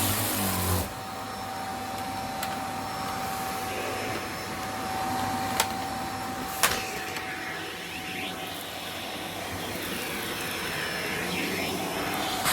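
Vacuum cleaner running steadily with a thin whine over its hiss. A louder low rumble drops away just under a second in, and two sharp clicks come near the middle.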